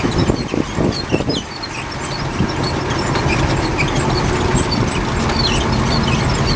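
Boat engine running steadily at a low hum, with a few knocks in the first second or so and short high chirps scattered throughout.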